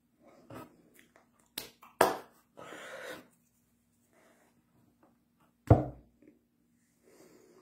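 Hand slaps and claps made while signing: two sharp ones close together about two seconds in, a short hiss after them, and the loudest, a heavy slap, near six seconds.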